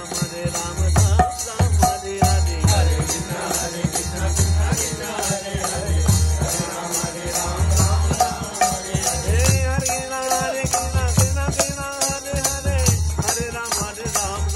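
Kirtan music: a harmonium holds chords under a man's devotional singing, over a fast, even jingling percussion about four strokes a second and low drum beats about once a second.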